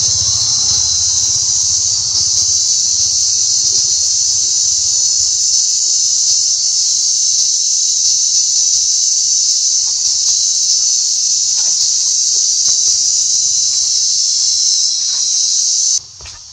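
Cicadas droning loudly in chorus, a steady high-pitched buzz that does not break, until it cuts off suddenly near the end.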